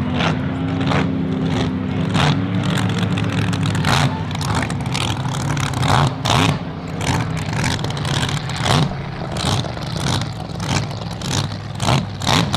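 Supercharged V8 engine of a hydroplane race boat running steadily as the boat slows and comes down off the plane. Irregular sharp cracks come about every half second over the engine note.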